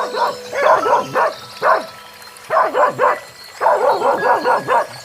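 A dog barking in quick, high yaps, in three runs of several barks each.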